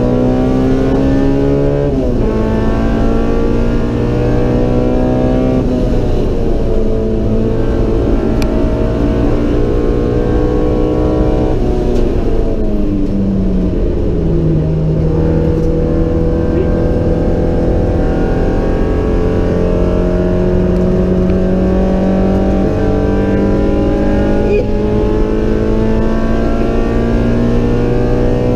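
Stroked Honda B18C DOHC VTEC four-cylinder (1943 cc, naturally aspirated, custom header) under hard acceleration, heard from inside the stripped cabin. The engine note climbs and drops sharply at upshifts about two and six seconds in, falls away around twelve to fourteen seconds as the driver backs off, then climbs slowly again to the end.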